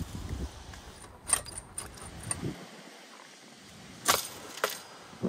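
Wire-mesh metal cot clanking and rattling as it is handled and set down: several sharp knocks, the loudest about four seconds in.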